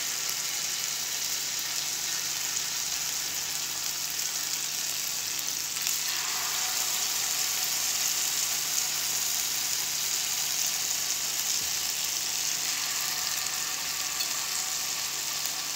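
Marinated chicken pieces sizzling as they fry in hot butter in a ridged grill pan, a steady hiss that grows a little fuller about six seconds in.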